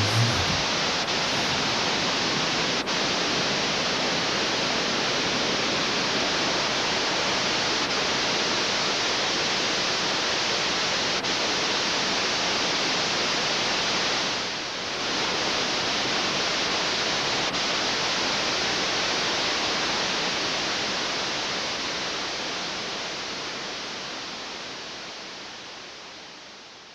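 A steady, even rushing noise like static or rushing water, which dips briefly about halfway through and fades away over the last several seconds.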